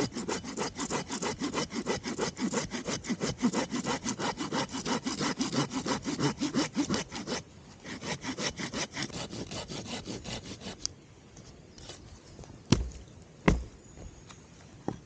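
Hand saw cutting through wood with quick, even back-and-forth strokes, pausing about seven seconds in and going on for a few more seconds. Near the end come three sharp knocks.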